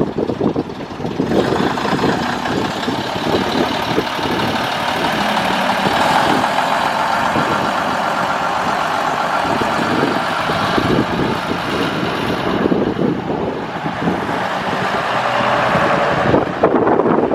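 Bus engine running under way, with road noise and rattling throughout; the noise swells about a second in and again near the end.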